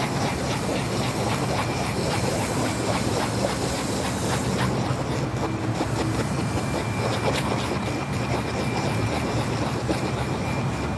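Steady mechanical hum and rushing noise, with light scraping ticks from a screwdriver stirring two-part steel epoxy paste on cardboard.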